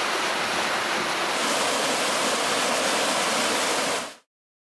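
Mountain stream rushing over rocks, with water pouring down a small cascade in a steady rush. It cuts off suddenly near the end.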